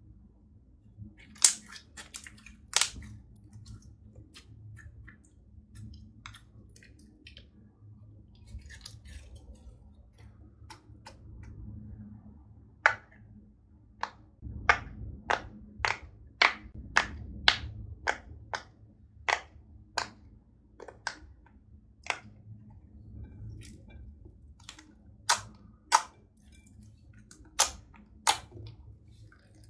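Slime being stretched and pressed by hand, giving sharp sticky pops and crackles. Partway through, a silicone pop-it fidget is worked against the slime and the pops come in a steady run of about two a second. The loudest pops come near the end.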